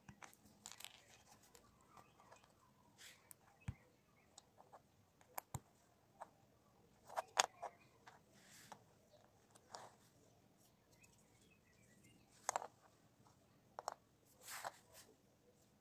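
Faint, scattered clicks and taps of small LEGO plastic pieces being handled, pressed together and set down on a cutting mat, with a sharper cluster of clicks about halfway through.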